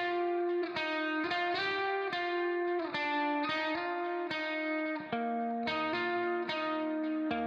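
Background music: a guitar playing a melody of plucked notes with an effects-processed, lightly distorted tone.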